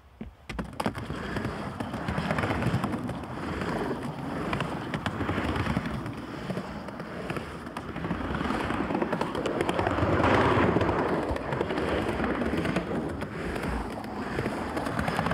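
Skateboard wheels rolling over the humps of a pump track: a rumbling, crackly roll that swells and fades as the rider pumps around the lap, loudest about two-thirds of the way through.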